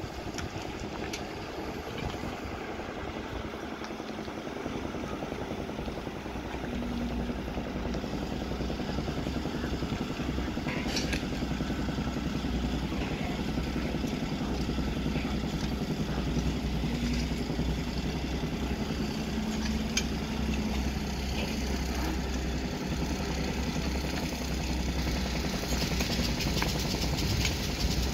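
Caterpillar tracked excavator's diesel engine running steadily, a little louder after the first several seconds, with a few short metallic clanks.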